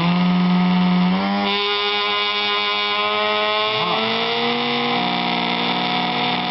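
Pump motor test rig spinning at high speed with a steady whine of several tones together, which steps to a new pitch about one and a half seconds in. It is being run up to around 200 Hz output, roughly 3000 rpm by the owner's estimate, to see the highest voltage it gives into a light bulb.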